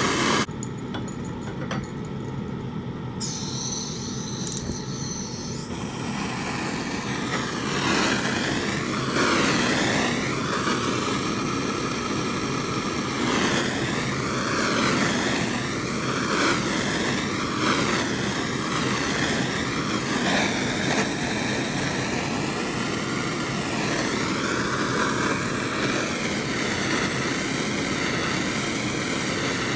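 Jeweler's soldering torch flame hissing steadily while heating a large silver piece to dry the flux before soldering, with a ventilation fan running. The noise grows louder about seven seconds in, then holds steady.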